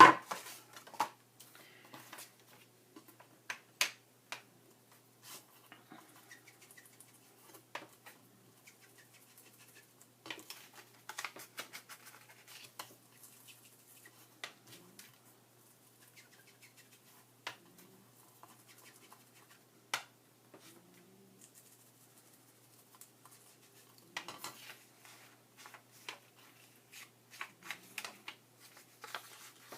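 Foam-topped ink blending tool scrubbing ink onto the edges of paper in bursts of quick scratchy strokes, with occasional single light taps between them.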